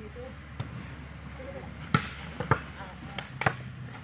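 A volleyball being struck by players' hands during a rally: a handful of sharp slaps, the loudest about two seconds in.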